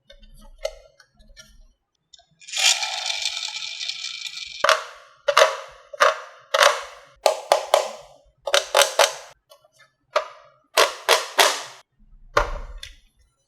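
Marbles rolling along a HABA wooden marble run, then a string of sharp clacks in twos and threes as they drop and knock against the wooden track pieces, each ringing briefly; a duller knock near the end.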